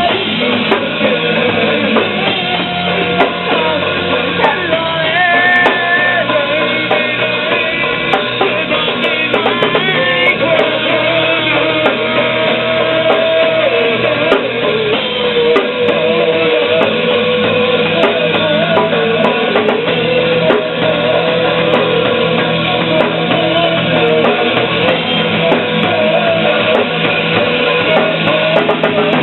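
Rock music with a full drum kit and guitars playing steadily, a wavering lead melody carried over the band.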